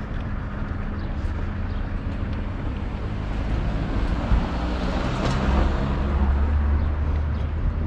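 A motor vehicle passing on the street, its engine and tyre noise swelling to a peak about five seconds in over a steady low rumble.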